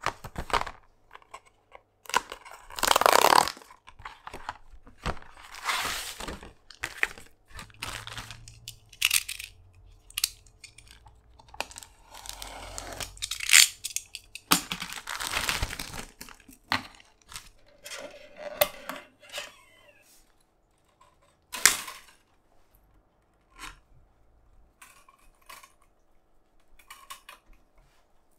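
Hand work in a luthier's workshop: irregular scraping, rustling and tearing-like noises with scattered sharp clicks, busiest in the first two thirds and thinning out to occasional clicks near the end.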